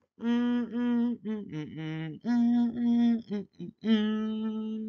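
A person's voice singing a run of short wordless notes, ending on one long held note.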